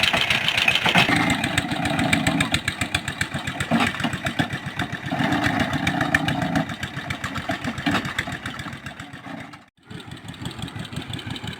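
Engine of a water well boring rig running with a rapid, steady beat, its note thickening for a couple of seconds at a time, with a brief break about ten seconds in.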